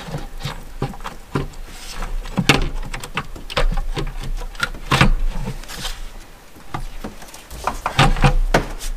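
Plastic upper intake manifold of a Chrysler 3.6 V6 being fitted by hand onto the engine: irregular clicks and knocks of plastic against the engine and its fittings, heaviest a couple of times mid-way and near the end.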